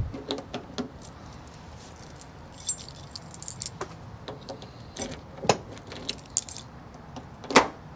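Key ring jangling while a key is worked in the clockwork-like trunk lock hidden behind the rear emblem of a 1972 Lincoln Continental, the lock mechanism clicking several times. A sharper click comes about five and a half seconds in and the loudest near the end, as the trunk latch releases.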